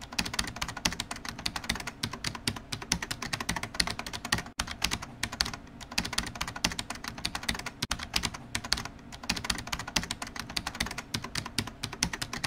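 Keyboard typing sound effect: a rapid, unbroken run of key clicks that goes along with text being typed onto the screen.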